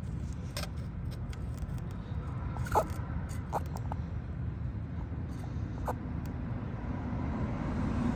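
A steady low background rumble with a few light clicks and scrapes, one with a short falling squeak about three seconds in.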